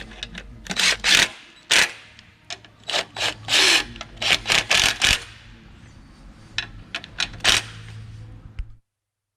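Short bursts of a small cordless impact driver, about a dozen, with clanks, as the bolts of a mini excavator's track-adjuster cover plate are tightened.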